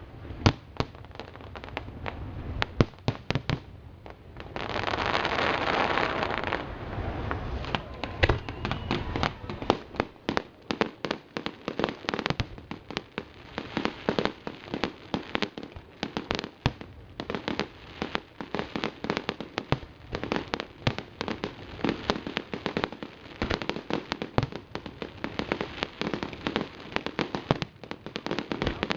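Aerial fireworks display: shells bursting in repeated sharp bangs. About five seconds in, a dense hissing crackle lasts about two seconds, and after that rapid strings of crackling reports run almost without a break.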